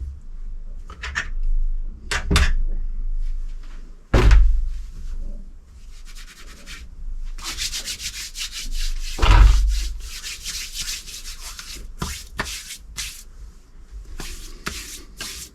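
Hand work on the parts of a disassembled electric supercharger: a few knocks, a stretch of scraping and rubbing about halfway through, then several sharp clicks.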